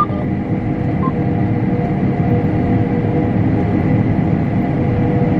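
Combine harvester running steadily while cutting wheat: a constant engine and machinery drone with a steady hum over it.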